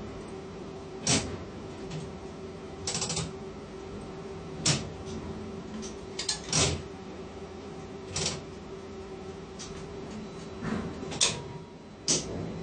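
Steady machine hum of a ship-to-shore tandem container crane, with irregular sharp metallic clicks and knocks every second or two, the loudest about eleven seconds in.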